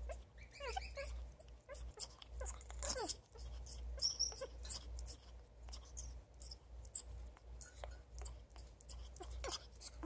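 African grey parrot making soft, short falling squeaks and a brief high note among many quick clicks: the sound she makes when she is happy and wants affection.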